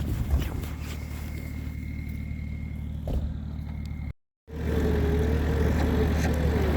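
Off-road 4x4 engine running steadily. About four seconds in there is a brief break, then a louder engine note with a slightly wavering pitch.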